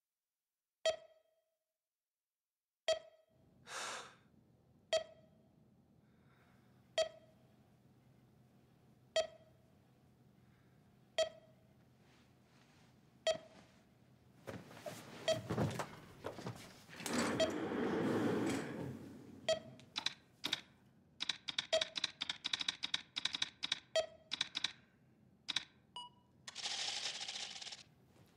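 A short electronic beep repeats about every two seconds. Over it there is some rustling, then a quick run of typing on a keyboard and a brief noisy burst near the end.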